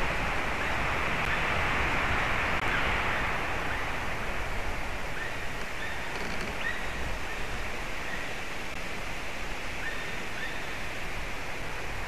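Steady noise of wind in the trees, a little stronger in the first few seconds and then easing. A few faint, short, high bird calls come through from about five seconds in.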